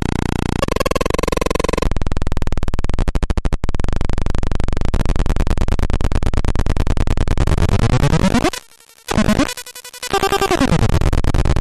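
Homemade electronic noise box played by flipping its toggle switches: a harsh, rapidly pulsing electronic buzz whose pitches sweep up and down and change as the switches are thrown. The sound cuts out briefly twice about three quarters of the way through.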